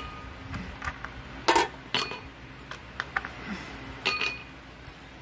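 Tableware clinking at a meal: cutlery and glasses knocking against plates and glass in scattered short clinks, some with a brief ring, the loudest about a second and a half in and again around two and four seconds.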